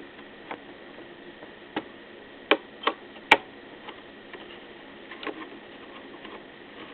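Light clicks and taps of work on a laptop's hinge screws as they are tightened: about six separate sharp clicks, the loudest about three and a half seconds in.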